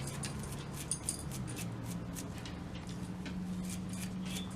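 Metal scouring pad scrubbing crust and oxidation off a soldering iron's metal tip holder: a run of quick, irregular scratchy rasps over a steady low hum.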